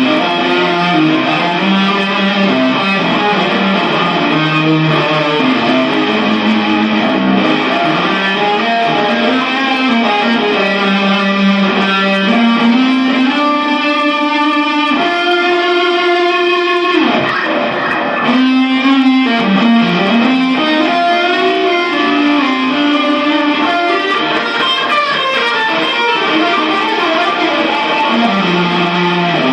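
Electric guitar playing a melodic line with sliding notes and a long held note about halfway through, recorded through a Samsung Galaxy S III's microphone.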